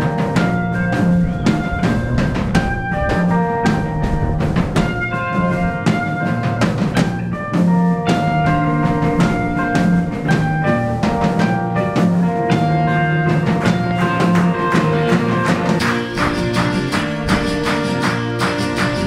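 Background music: an up-tempo band track with a steady drum kit beat and guitar, without singing.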